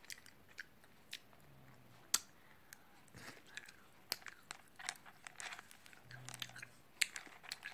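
Faint chewing of sweets, with scattered sharp clicks as a hand rummages through candies in a small bowl.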